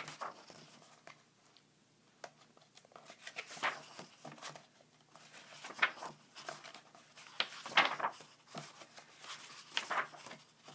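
Pages of a comic-strip book being turned by hand: a few short paper swishes, about two seconds apart.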